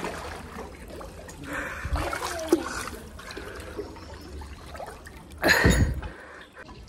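Water sloshing and splashing in a swimming pool, with one louder splash about five and a half seconds in.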